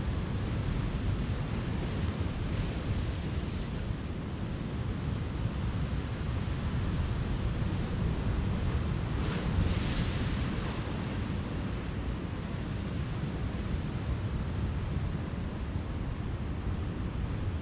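Ocean surf washing ashore with a steady low rumble and wind buffeting the microphone; a wave breaks with a brighter hiss about nine seconds in.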